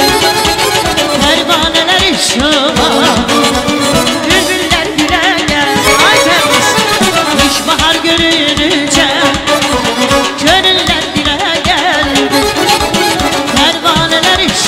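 Azerbaijani folk dance music: a garmon (button accordion) playing an ornamented, bending melody over a steady drum beat.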